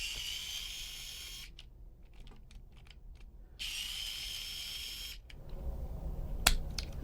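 A small high-speed electric motor whirring in two bursts of about a second and a half each, with a sharp click near the end.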